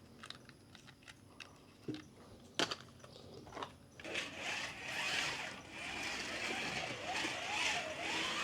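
A few light plastic clicks and taps, then from about four seconds in a Ninco slot car's small electric motor whines along the track over a steady hiss, its pitch rising and falling with the throttle.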